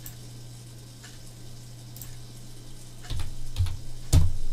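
Computer keyboard keystrokes and mouse clicks: a few light clicks spaced out, then a cluster of louder taps and thuds near the end, over a steady low hum.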